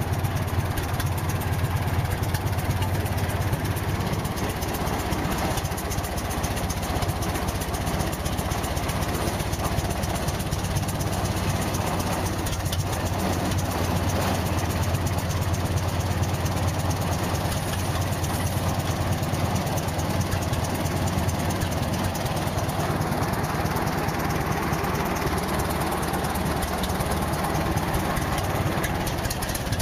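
Old two-cylinder stationary diesel engine running steadily at idle, with an even, fast firing beat.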